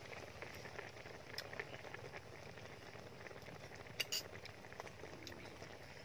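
Faint, steady bubbling and crackling of soup simmering in a wok, with a metal spoon clinking sharply against a small glass bowl twice about four seconds in.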